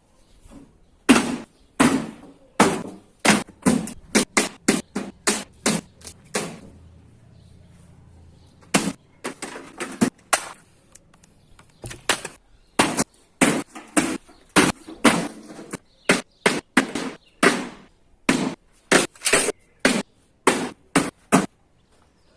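A microwave being banged over and over: dozens of sharp bangs, one or two a second, in runs broken by two short pauses, with a faint low hum during the first pause.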